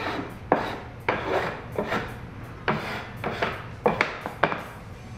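A hand brushing sawdust off a wooden sanding jig in a run of about eight short swipes, roughly one every half second to second.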